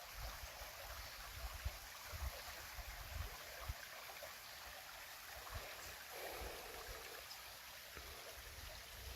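Water flowing steadily, a stream or cascade, heard as a quiet even rush, with irregular low rumbles underneath.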